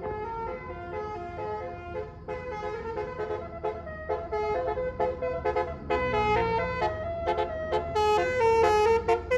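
Bus telolet horn (Basuri multi-trumpet melody horn) playing a quick tune of stepped notes, with a bus engine rumbling underneath. The sound grows louder about six seconds in and again near the end.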